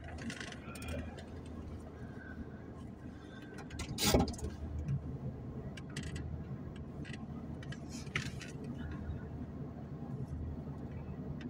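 Tracked excavators at work: a steady low diesel engine rumble with scattered knocks and clatters, the loudest a sharp knock about four seconds in.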